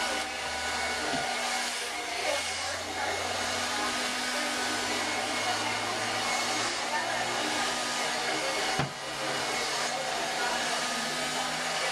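Handheld hair dryer blowing steadily while hair is blow-dried over a round brush, with a brief dip in level about nine seconds in.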